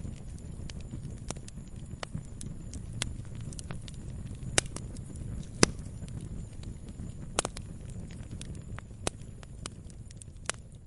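Log fire burning: a steady low rumble of flames with irregular sharp crackles and pops of burning wood, the loudest pops about halfway through.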